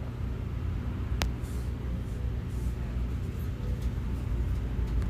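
Steady low background rumble, with a single sharp click about a second in.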